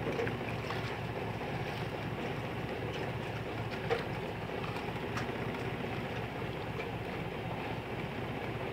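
Boat engine running steadily under wind and sea noise, with a couple of faint clicks about four and five seconds in.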